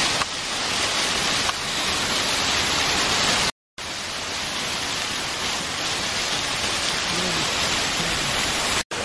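Steady rushing hiss of water from a tall garden fountain jet and its small cascades splashing into a basin. The sound cuts out for a moment about three and a half seconds in.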